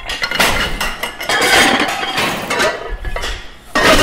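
Metallic clanging and clinking with ringing, like struck metal, from an intro title sound effect. One sharp hit comes about half a second in and another near the end.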